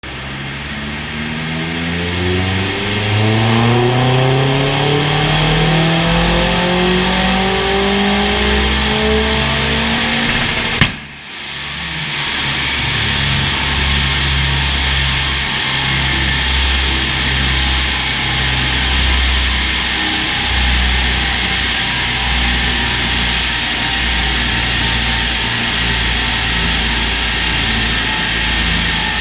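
Vauxhall Astra VXR's turbocharged 2.0 four-cylinder on a rolling road, making a full-throttle power run: the engine note climbs steadily in pitch for about ten seconds, then cuts off with a sharp crack as the throttle closes. After that a steady loud rumble and rush carries on as the car and rollers run down.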